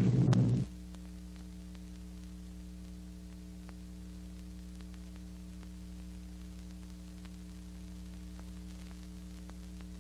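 A loud passage of the old film soundtrack cuts off abruptly about half a second in. It leaves a steady electrical hum with faint scattered crackles, the background noise of a 1940s optical film soundtrack.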